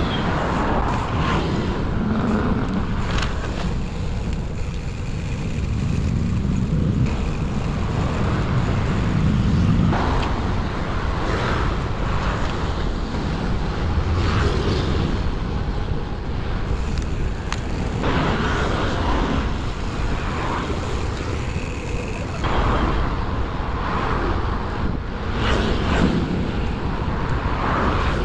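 Street traffic of cars and motor scooters heard from a moving bicycle, with wind rumbling steadily on the microphone and passing vehicles swelling now and then.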